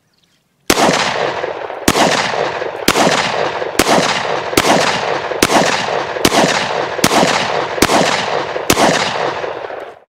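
A .40 caliber pistol fired ten times at a steady pace of about one shot a second, each shot followed by a long echo that carries into the next. The sound cuts off suddenly near the end.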